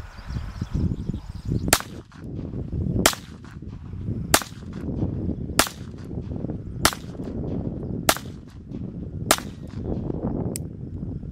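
Whitney Wolverine .22 LR semi-automatic pistol firing seven sharp shots at a steady pace, about one every second and a quarter, followed by a fainter click near the end.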